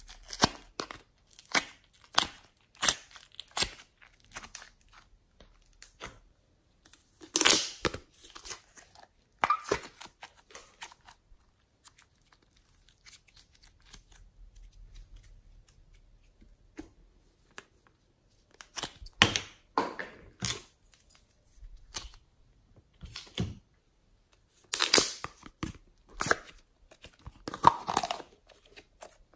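Glossy slime worked by hand, squeezed, stretched and pressed, giving irregular sticky clicks, pops and tearing sounds in clusters, with a quieter stretch partway through.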